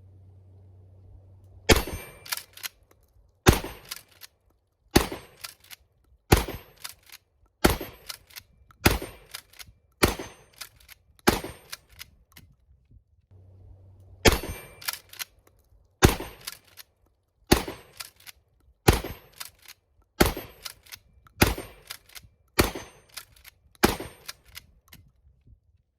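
Gunshots fired one at a time, about one every second and a half, in two strings of eight with a pause of about three seconds between them, each shot trailing off in echo.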